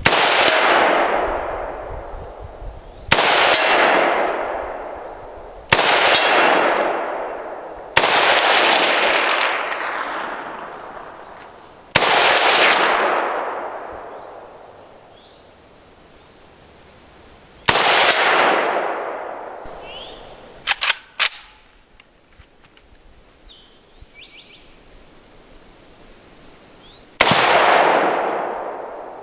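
Semi-automatic 7.62x39 AK-47 rifle firing seven single shots at uneven intervals, each crack followed by a long fading echo. There is a long pause between the last two shots, with a few light clicks in it.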